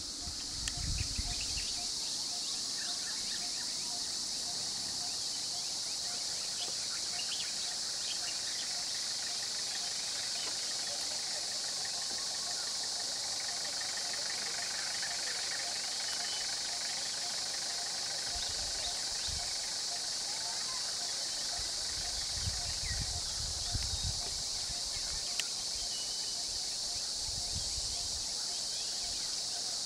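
Steady high-pitched chorus of insects, with birds chirping now and then and a few low rumbles in the second half.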